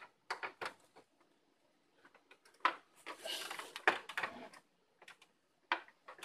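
Handling noises of a P2-to-RCA audio cable being plugged into a TV's Audio Out jack: a few separate clicks, then a cluster of clicks and rustling from about two and a half to four and a half seconds in, and one more click near the end.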